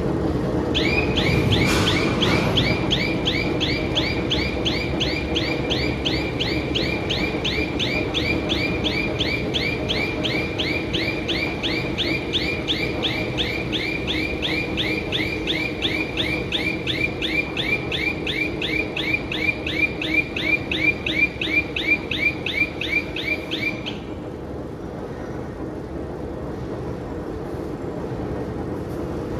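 Dump truck reversing alarm chirping rapidly, about four chirps a second, louder toward the end before cutting off suddenly, over a steady low hum of heavy machinery.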